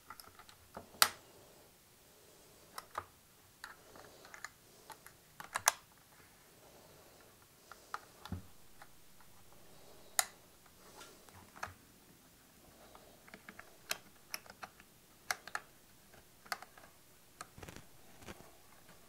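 Irregular light clicks and taps of small plastic and metal parts being handled and fitted into the nose and contact-tip assembly of a Ryobi P320 18-gauge brad nailer, with a few sharper, louder clicks among them.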